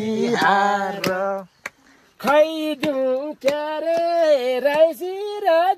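Unaccompanied singing: one voice holding long, wavering notes of a slow song, breaking off briefly about a second and a half in.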